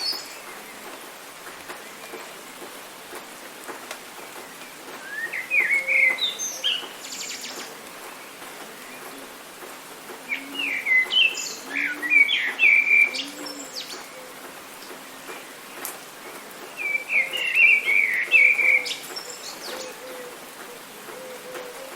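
A songbird singing in three bursts of rapid chirping phrases, about five seconds apart, over a steady hiss of rain.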